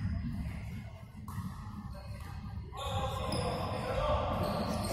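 Game sounds on a wooden gym court: a basketball bouncing, with players' voices. The general noise grows louder about three seconds in.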